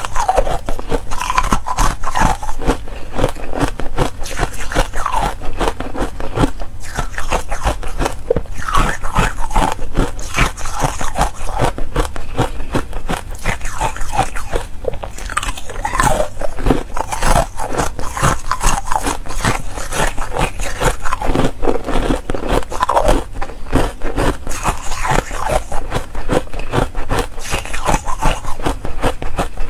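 Buckwheat ice being bitten and chewed, a steady run of crisp crunches and crackles as the frozen pieces break between the teeth.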